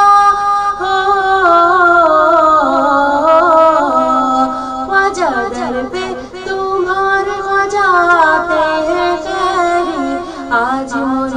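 A woman singing a manqabat, a Sufi devotional song, drawing out the line in long held notes and ornamented runs that bend up and down in pitch.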